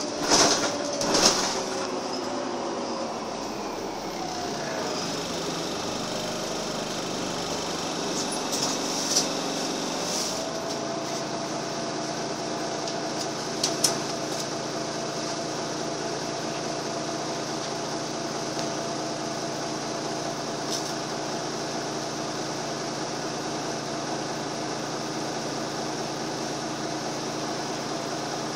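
Interior sound of a Karosa B941E city bus under way: the diesel engine and drivetrain running with a steady hum and whine, the pitch sagging over the first few seconds and then holding steady. A few short knocks or rattles from the cabin stand out near the start and again around the middle.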